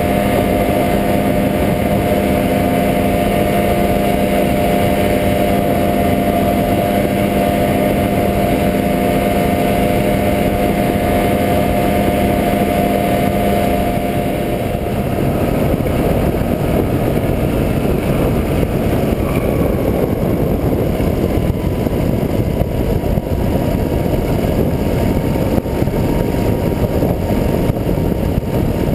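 Rotax 503 two-stroke twin engine of an ultralight trike running steadily at climb power. About halfway through, rushing wind noise on the microphone takes over and masks the engine's steady tone.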